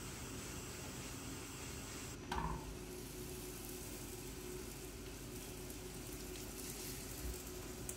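Food frying in a pan on a gas hob, a steady low sizzle, with a single knock about two seconds in.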